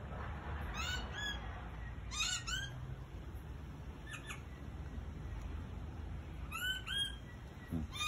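Australian king parrots calling: short arched chirps in groups of two or three notes, about four groups a couple of seconds apart, over a steady low background rumble.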